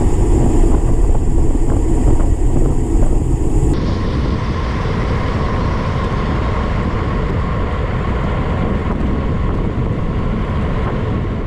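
Wind rushing over the microphone of a bicycle-mounted camera on a road-bike descent, a loud steady low rumble mixed with tyre noise on the asphalt. A high hiss on top cuts off suddenly about three and a half seconds in.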